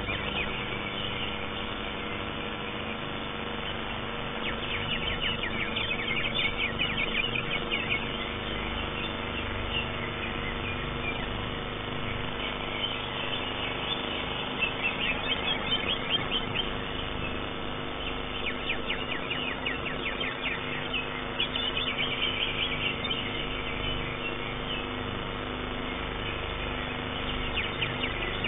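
Greater green leafbird (cucak hijau) singing in its contest cage: spells of fast, high chattering phrases a few seconds long, three or four times, over a steady background hum.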